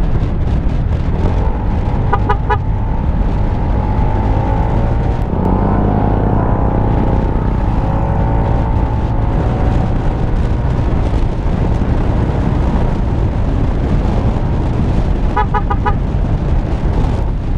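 Motorcycle riding on the road, with a steady engine and wind rumble into the helmet-mounted microphone; the engine note rises and falls in the middle as it speeds up and eases off. A horn beeps in a quick run of short toots twice, about two seconds in and near the end.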